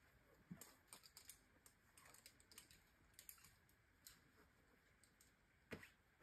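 Near silence broken by faint, irregular clicks and ticks, with one louder knock near the end.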